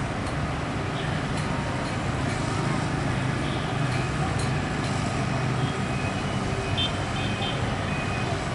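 Komatsu PC200 crawler excavator's diesel engine running at a steady pitch while it digs.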